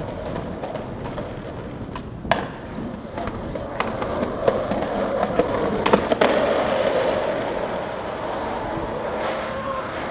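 Skateboard wheels rolling over asphalt, a steady rumble, with sharp clacks of the board about two seconds in and twice close together near six seconds.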